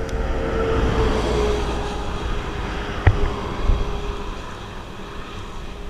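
A motor vehicle passing on the road: a rushing noise with a steady hum that dips slightly in pitch as it swells about a second in, then slowly fades, over wind rumble on the microphone. A single sharp click about three seconds in.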